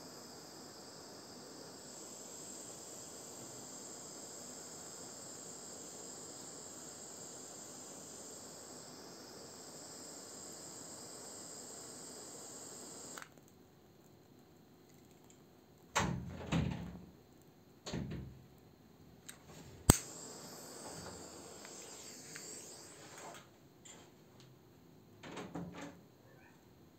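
Handheld butane torch hissing steadily as it heats a plastic toy figure, cutting off abruptly about halfway through. After that come a few scattered dull knocks and one sharp click.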